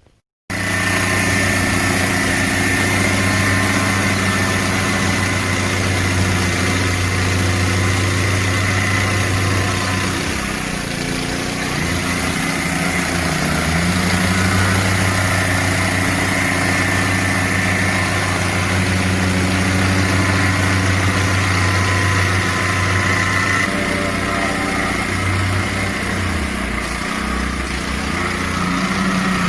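Petrol plate compactor (wacker plate) running steadily while compacting a wet, cement-mixed hardcore base. Its engine note dips and shifts about ten seconds in, and again near the end.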